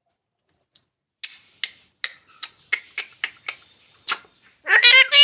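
A run of about nine sharp clicks, a few to the second, then near the end a short, loud call from a talking parrot.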